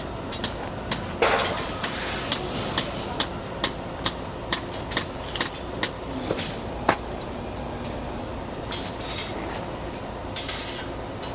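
A run of sharp taps or knocks, about two a second, over steady construction-site machinery noise; the taps stop after about six seconds, and a few short hissing bursts follow.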